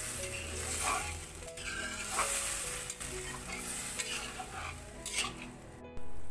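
Fried spice paste sizzling in an aluminium kadai as the water just added to it heats, while a wooden spatula stirs and scrapes along the pan. The sound breaks off for a moment near the end.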